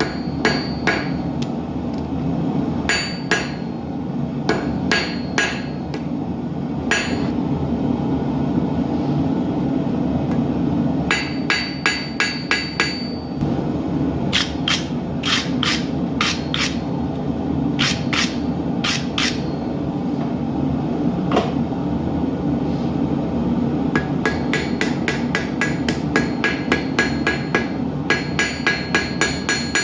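Hand hammer forging hot steel on an anvil: runs of quick ringing blows with pauses between, the fastest and longest run in the last six seconds. Underneath is a steady low rushing roar from the gas forge.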